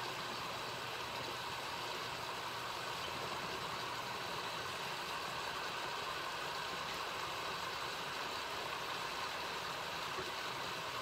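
Chicken thighs frying in a stainless-steel pan: a steady, even sizzle.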